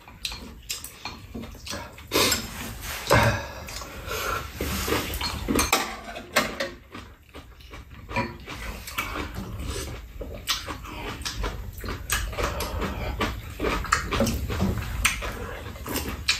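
Close-up eating sounds: chewing and slurping of soup, with chopsticks and spoons clicking against bowls many times.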